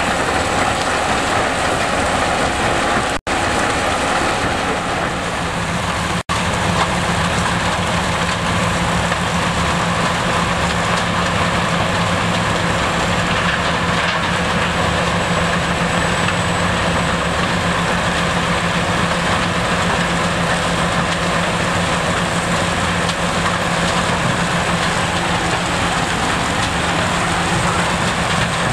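Gipo R131C tracked mobile crusher running under load: a steady, loud mix of engine, crusher and conveyor noise with a low hum, as crushed rock pours off the discharge conveyor onto the stockpile. The sound cuts out for an instant twice in the first few seconds.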